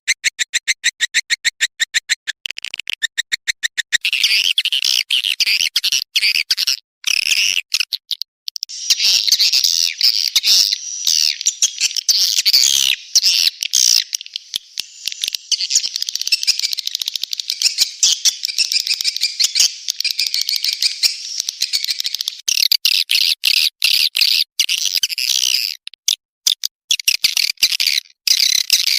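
Swiftlet lure call: edible-nest swiftlets twittering in high chirps. It opens with a rapid, evenly spaced run of short chirps, about eight a second, turns into dense overlapping chattering after about four seconds, and returns to the rapid run near the end.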